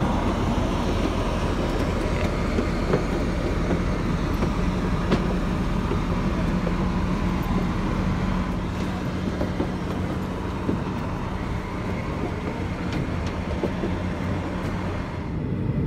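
Steady mechanical drone and rumble of aircraft and ground equipment on an airport apron, with a steady hum and a few sharp clicks of footsteps on an aluminium airstair.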